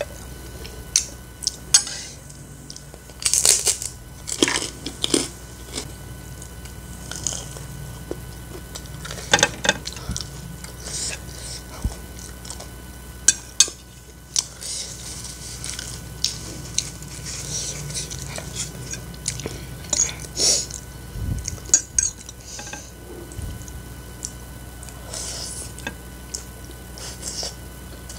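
A metal fork clinking and scraping against a ceramic plate as it pushes and gathers fried instant noodles and green chilies, in scattered sharp taps and short scrapes.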